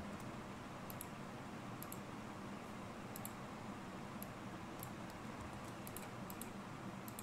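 Faint, scattered clicks of a computer mouse and keyboard, a dozen or so at irregular intervals and often in quick pairs, over a steady low hiss of room noise.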